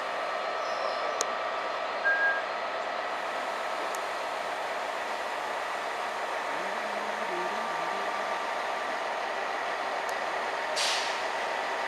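Rake of passenger coaches rolling slowly into a platform, with a steady squeal from the wheels and brakes over the running noise, a short sharp squeak about two seconds in, and a brief hiss of air near the end.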